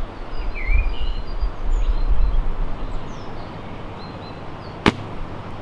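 Birds chirping and a low wind rumble on the microphone while a recurve bow is held at full draw; about five seconds in, a single sharp snap of the bowstring as the arrow is loosed from the Morrison Max 4 ILF recurve.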